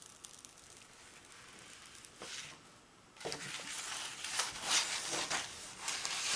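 Rolled diamond painting canvas and its cover sheet rustling and crackling as they are unrolled and smoothed flat by hand. The rustling is faint at first and gets denser and louder from about three seconds in.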